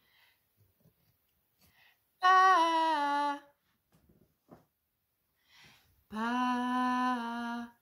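A woman singing two short phrases: the first, about two seconds in, steps down in pitch; the second, near the end, is one long held note.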